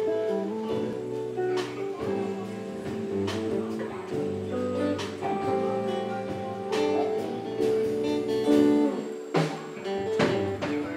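A band plays, led by guitar with strummed and plucked notes. Occasional drum-kit hits fall irregularly through it.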